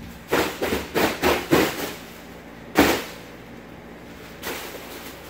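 Deflated foil mylar balloons crackling and crinkling under a toddler's stomping bare feet: a quick run of about six crunches in the first two seconds, then one louder crunch with a thump a little under three seconds in, and a fainter rustle later.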